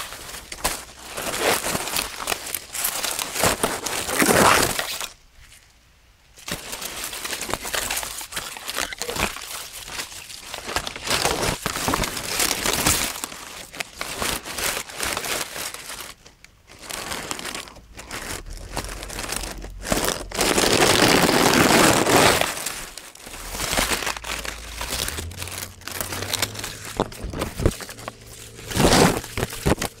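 Dry grass stems and leaves rustling and crackling as they are pushed aside and brush against the microphone, in loud irregular bursts with a few short lulls.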